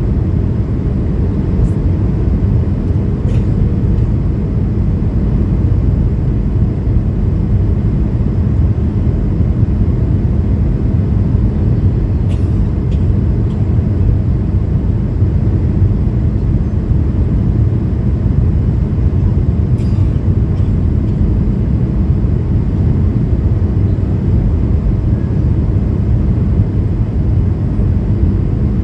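Steady cabin roar of a Boeing 737-800 in flight on descent, its CFM56-7B engines and the rushing airflow heard from inside the passenger cabin. Deep and even, with a few faint clicks.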